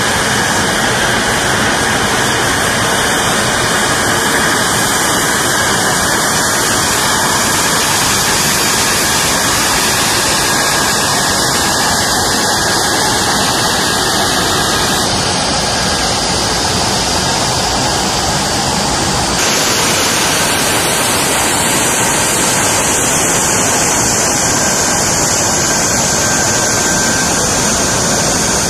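F-35B Lightning II jet engines running at high power on a ship's flight deck: a loud, steady rush of jet noise with no break. Its character shifts abruptly about halfway through and again about two-thirds through.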